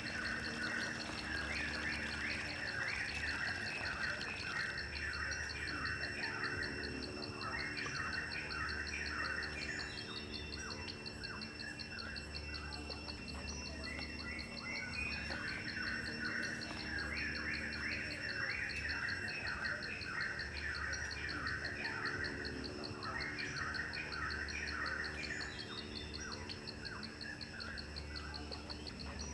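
Insects trilling steadily, with bursts of bird chirping that come and go every few seconds.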